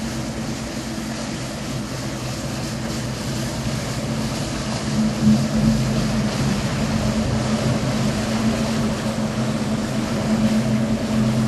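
Diesel inboard engines of a 45-foot Hatteras sport-fishing yacht running at slow harbour speed, a steady low drone that grows louder about halfway through as the boat passes close by.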